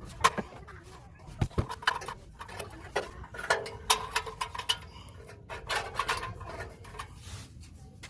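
A run of sharp clicks and clinks at irregular intervals, with chickens clucking in short calls between them.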